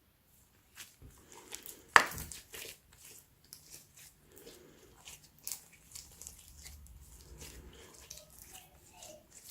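Clear slime with black paper mixed in, being kneaded and stretched by hand: irregular sticky clicks, pops and crinkles, with one sharp, loud pop about two seconds in.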